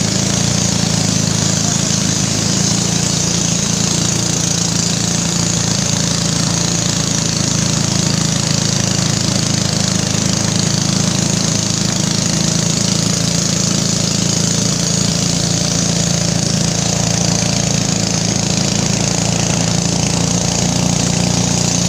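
Engine of a narrow river longboat running steadily at speed, a loud even drone, over the rush of water and wind past the moving boat.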